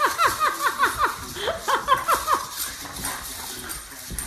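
Dog giving a rapid run of short, high yips, each dropping in pitch, about five a second. The yips pause briefly about a second in, pick up again, and die away after about two and a half seconds.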